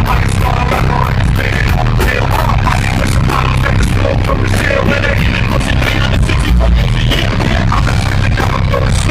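Loud live concert music over a PA system, with heavy bass and a steady drum beat.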